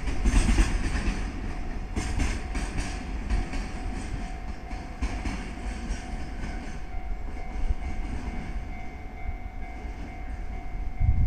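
Long freight train of container wagons rolling past, its wheels clattering over rail joints, the clatter fading as the tail end draws away. A faint steady whine holds from about halfway through.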